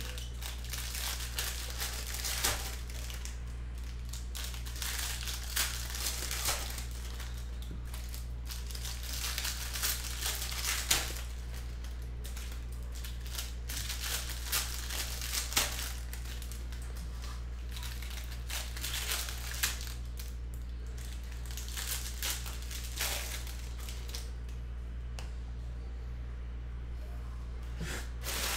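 Foil wrappers of Bowman baseball card packs crinkling and tearing as packs are ripped open and cards handled, in irregular crackles and rustles. A steady low hum runs underneath.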